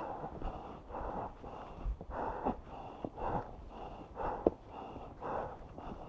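A hiker breathing hard and panting while climbing a steep trail, about one heavy breath a second, with a sharp click of a step or stick on rock about four and a half seconds in.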